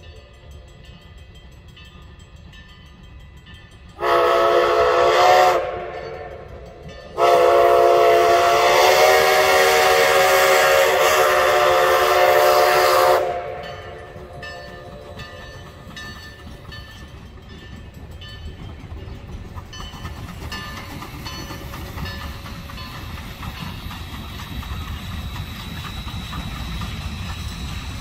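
Narrow-gauge steam locomotive's whistle blowing a short blast about four seconds in, then a long blast of about six seconds, both a steady multi-note chord. After the whistle, the rumble of the departing train slowly grows louder toward the end.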